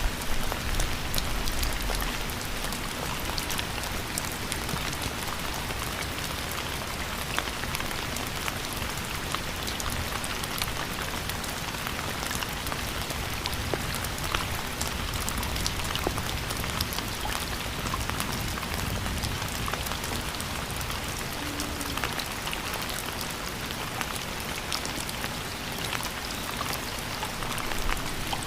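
Steady rainfall, with many individual drops landing as small sharp ticks over an even hiss.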